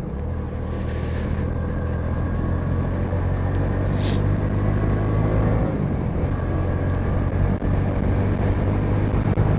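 Bajaj V15's single-cylinder engine running under acceleration on the road, its level building gradually as the motorcycle gathers speed. A brief hiss is heard about four seconds in.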